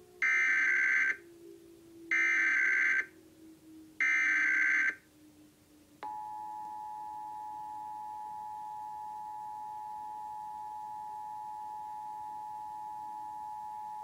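Emergency Alert System Required Monthly Test received over FM radio. Three loud one-second bursts of the digital SAME header squawk, about two seconds apart, are followed about six seconds in by the EAS two-tone attention signal: a steady pair of close pitches held for about eight seconds before cutting off.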